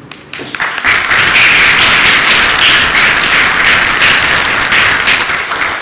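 Audience applauding, starting about half a second in and thinning out near the end.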